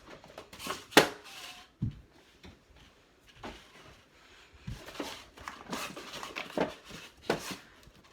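Fidget toys being handled and packed into a storage bin: a run of irregular knocks, clicks and rustles, the loudest a sharp knock about a second in.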